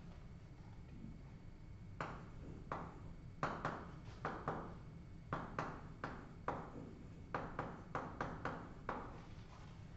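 Chalk writing on a blackboard: a quick, irregular run of short taps and scratches as the words are written, starting about two seconds in, over a steady low room hum.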